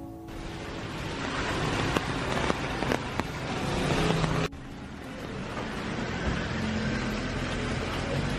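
Wet city-street ambience: a steady hiss of passing traffic on wet road, with a few light clicks. The sound cuts abruptly to a quieter stretch about four and a half seconds in.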